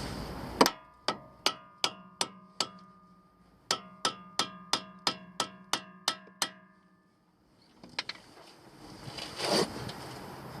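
Hammer striking steel with a ringing tone, as a Mini Cooper R56 tie rod end is worked loose: about six blows, a pause, then a quicker run of about nine, and two more later. A short scraping sound follows near the end.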